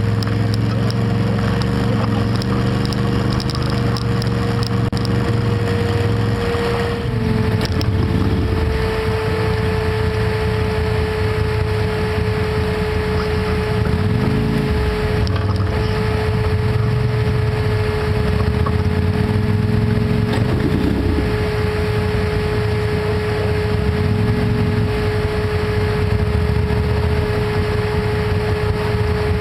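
Quad ATV engine running at low trail speed, its revs rising and falling briefly a few times, with a steady whine throughout.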